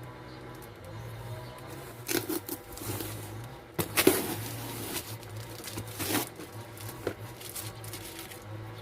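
Paper or plastic gift packaging rustling and tearing in a few short bursts, the loudest about four seconds in, over a low steady hum.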